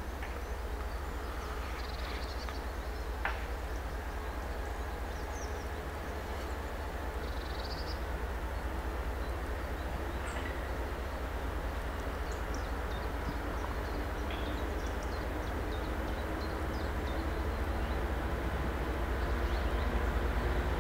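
Distant pair of TEP70 passenger diesel locomotives approaching with a train, a low rumble that slowly grows louder. Small birds chirp a few times in the first half, with a single sharp click about three seconds in.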